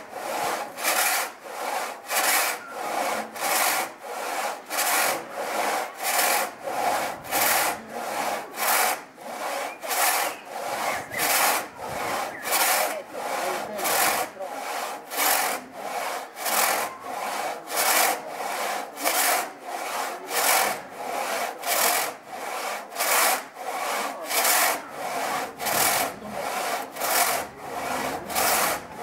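Two-man pit saw ripping lengthwise through a timber on trestles, worked up and down by a top and a bottom sawyer. Each stroke is a rasping cut, in a steady rhythm of about three strokes every two seconds.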